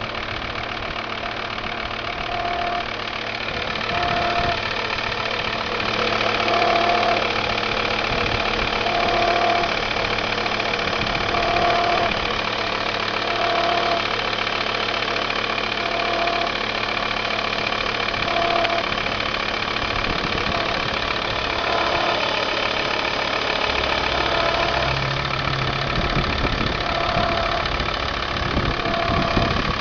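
Volvo V70 TDI's 2.5-litre five-cylinder diesel idling, with a short tone coming back roughly every two seconds. This recurring tone is the strange noise the owner is trying to identify.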